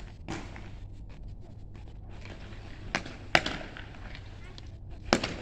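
Sharp cracks of guardsmen's parade-ground drill: a strong crack about three seconds in, the loudest a moment later, and another near the end, over a low steady background.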